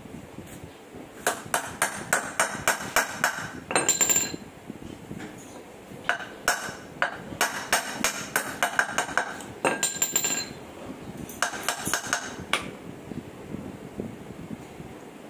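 Hammer striking the steel universal-joint yoke of a Toyota Innova propeller shaft, in three quick runs of ringing metallic blows about four a second. A short harsh scrape of metal comes after the first and second runs.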